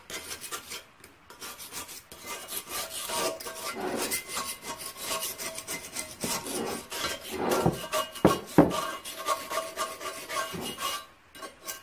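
Hand and rag rubbing back and forth over the cast-iron cover plate of an International 3 HP Type M engine, a repeated scraping with the plate ringing faintly. Two sharp knocks a little past eight seconds in.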